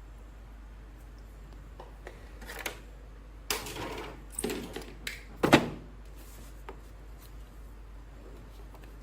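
Unboxing handling sounds of toy action figures and their packaging: a few seconds of rustling and clicking, ending in a sharp knock about five and a half seconds in.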